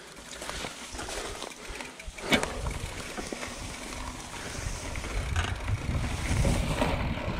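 Trek Fuel EX 5 29er mountain bike rolling over dry grass and dirt, with wind buffeting the camera microphone as a low rumble that grows louder as the ride picks up. One sharp knock about two seconds in.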